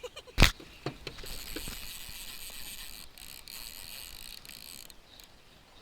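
A sharp knock, then about four seconds of fast, steady mechanical ratcheting, high and fine, with a few brief breaks.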